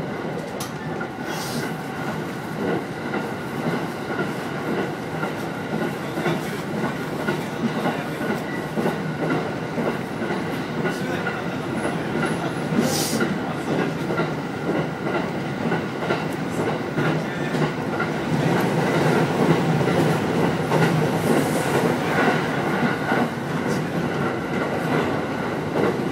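Sōbu Line Rapid commuter train running along the track, heard from inside at the front: a continuous rumble of wheels on rail with a few brief high hisses, growing louder past the middle.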